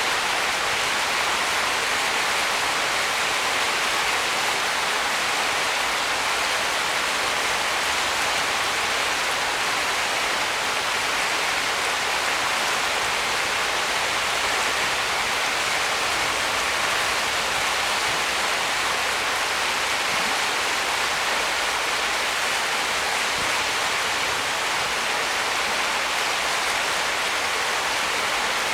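Small stream rapids rushing and splashing over rocks, a steady even hiss of running water.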